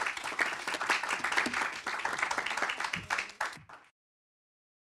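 Applause: a group clapping their hands, many quick irregular claps, cutting off abruptly about four seconds in.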